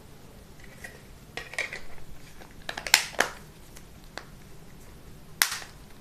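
Plastic back cover of a Dizo Star 300 keypad phone being pressed and clipped onto the handset, making a series of clicks and snaps, the sharpest one near the end.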